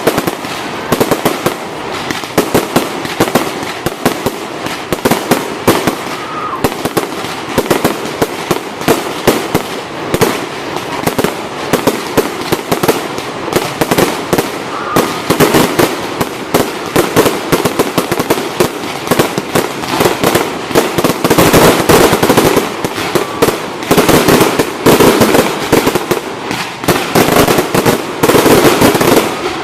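Fireworks display: a rapid, dense run of bangs and crackling bursts with no gaps, growing louder and denser about two-thirds of the way through.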